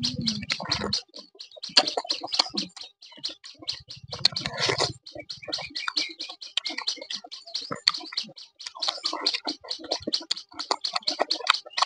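Close-miked chewing and lip-smacking as a person eats rice and soft boiled vegetables by hand: a rapid, irregular run of wet clicks and smacks. There are two deeper, fuller stretches, one at the start and one about four seconds in.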